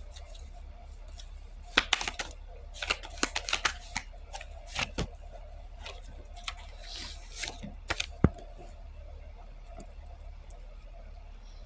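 Short clicks and rustles of small objects being handled, coming in a burst from about two to eight seconds in, over a low steady hum.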